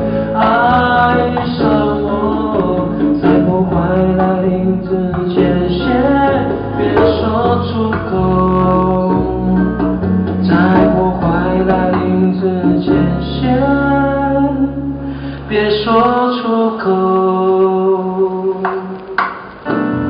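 A man singing live over his own acoustic guitar.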